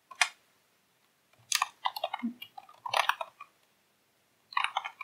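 Computer keyboard being typed on: a single keystroke just after the start, then three short bursts of rapid key clicks as a command is typed and entered.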